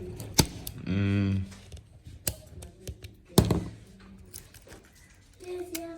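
Scattered sharp clicks and taps, three of them prominent, with a short held vocal hum about a second in and a fainter pitched tone near the end.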